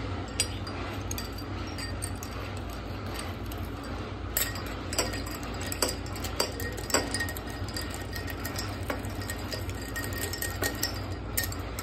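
A metal spoon stirring ice cubes in iced drinks in drinking glasses, with irregular sharp clinks of spoon and ice against the glass, coming thicker about four to seven seconds in and again near the end.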